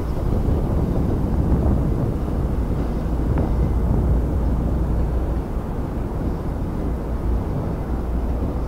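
Steady low rumble of a diesel-hauled commuter train rolling past across the river.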